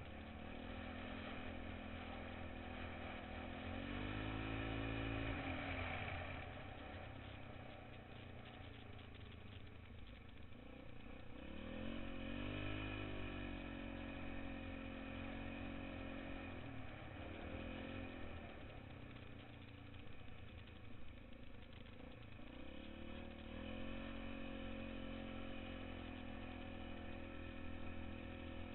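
Engine of a small vehicle driving through snow, running steadily and revving up then easing back off about four times.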